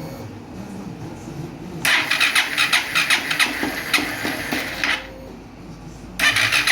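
Honda CG 160 single-cylinder motorcycle engine being cranked over in two bursts of rapid pulsing, about three seconds and then again near the end, without catching yet: the first start after a new cylinder, piston and rings, slow to fire because the fuel tank has been removed.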